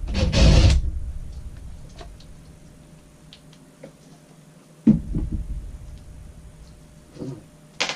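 Small plastic clicks and knocks as a broken sliding-closet-door latch is worked off the door, with a sudden thump and rumble about five seconds in and a sharp click near the end.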